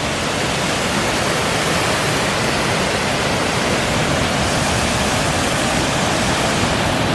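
Waterfall: a steady, full rush of falling water.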